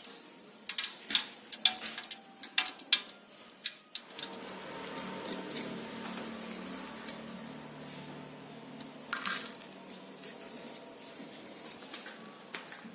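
Hot oil in a wok crackling and popping as food deep-fries, with many sharp pops for about four seconds. After that it turns into a quieter steady background with a low hum.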